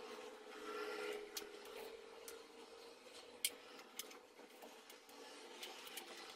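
Faint clicks and rubbing from a ring light and its tripod being handled while the light is fitted onto the tripod. The sharpest click comes about three and a half seconds in. A faint steady hum fades out about halfway through.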